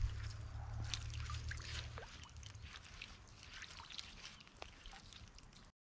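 Water trickling and dripping off a black poly aerator line as it is hauled hand over hand out of a farm dam, with small splashes. A low rumble sits under the first couple of seconds, and the sounds fade toward the end.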